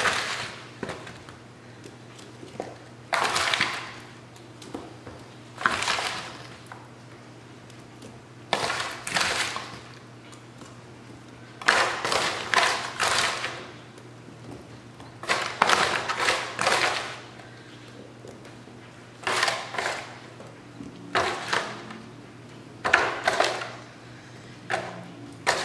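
Sliced, sugared apples being scooped by gloved hands out of a disposable aluminium foil pan and laid into another: crinkling foil and the rustle of the wet slices in short bursts every two to three seconds. A faint steady hum sits underneath.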